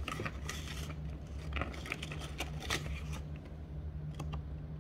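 Foil-lined snack bag crinkling and rustling as a hand rummages among salted-egg crisps, with many small crackles that thin out after about three seconds. A steady low hum runs underneath.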